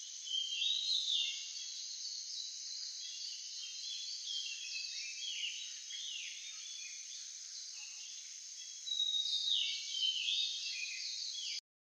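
Nature ambience: a steady, high insect chorus with birds calling over it in short, repeated falling whistled notes, busiest near the start and again near the end. It cuts off abruptly just before the end.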